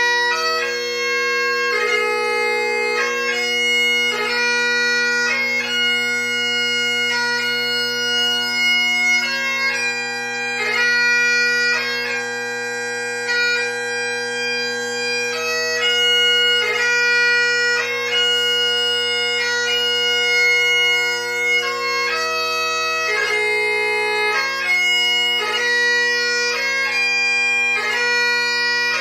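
Great Highland bagpipe playing a slow piobaireachd lament: steady drones under a chanter melody of long held notes, each change marked by quick gracenote cuts.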